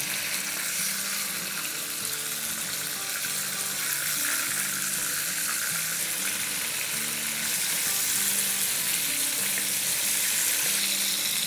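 Spice-coated fish pieces shallow-frying in hot oil in a wok, a steady sizzle, as the pieces are turned over one by one with tongs.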